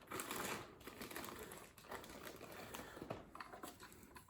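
Faint rustling and small clicking of packaging being handled as a model train tender is taken out of its box, a little louder in the first second.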